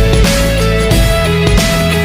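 Background music: a guitar-led instrumental track with a steady beat and changing notes.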